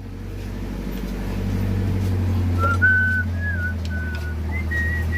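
A person whistling a short wavering tune, starting about halfway through, over a steady low motor hum that swells in the first couple of seconds.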